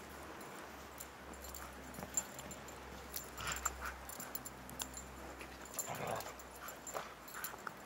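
Siberian husky giving a few short vocal sounds while playing, about three and a half seconds in and again around six seconds.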